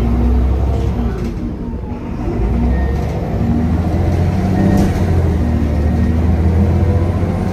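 Irisbus Agora L city bus's diesel engine heard from inside the passenger cabin: it eases off briefly, then about two and a half seconds in the automatic gearbox kicks down and the engine pulls hard under full throttle, its low drone growing louder and staying loud.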